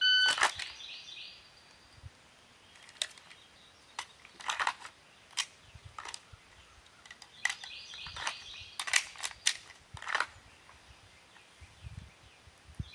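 A shot timer's beep at the start, then scattered sharp clicks and clacks of a Glock pistol being drawn from its holster, dry-fired and handled during dry runs of the drill.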